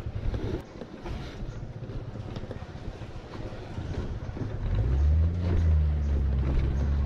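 Aprilia SR 150 scooter's single-cylinder engine running on a rough dirt track with knocks and rattles. The engine is quieter at first, then about two-thirds of the way in it opens up to a louder, steady hum.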